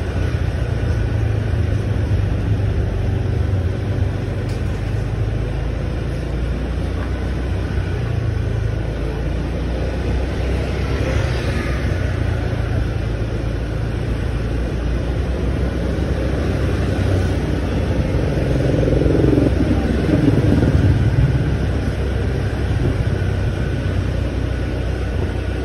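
Motorbike being ridden through slow town traffic: a steady low engine and wind rumble, with another engine note sweeping down in pitch about three-quarters of the way through.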